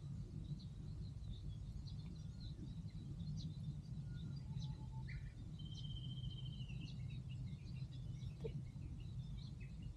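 Steady low outdoor background noise with faint, scattered small-bird chirps, and a short rattling bird trill a little past halfway through.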